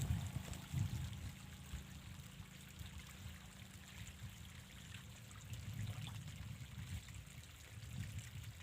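Water trickling and pouring into a pump-fed holding pool, over a steady low rumble.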